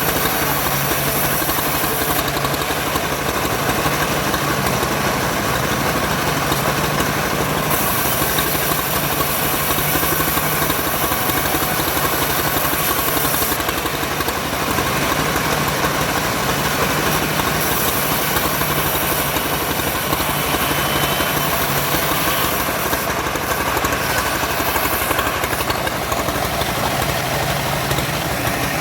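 Engine running steadily at an even speed, with a constant low hum and no revving.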